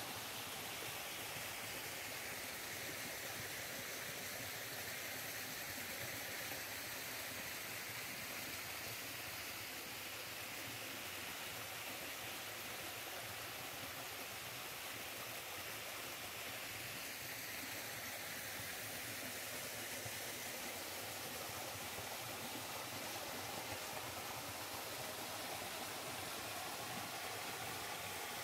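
Shallow mountain stream flowing over rock slabs: a steady, even rush of water whose tone shifts slowly.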